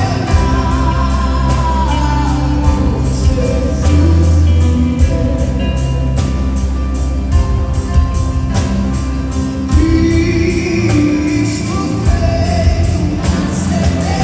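Live gospel song: singing over a band, with deep bass and a steady drum beat.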